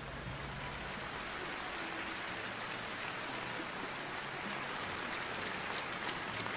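Arena crowd applauding steadily, with individual hand claps standing out more sharply in the second half.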